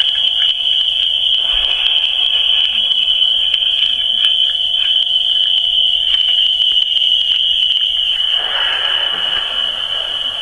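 Add-on sound modules in a Lionel Hobo Hotel model railroad accessory play a loud, steady, high-pitched chirring tone throughout. A fainter lower hum stops about eight seconds in, and a rush of hiss follows.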